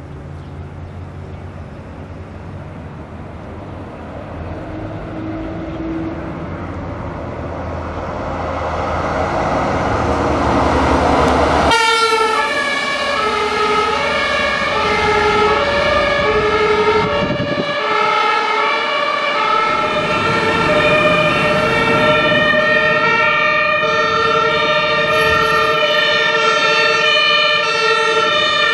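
A German fire truck's engine pulling away, its rumble and road noise rising. About twelve seconds in the sound cuts to a German two-tone siren (Martinshorn) stepping between two pitches about once a second, with more sirens overlapping later as several fire trucks respond together.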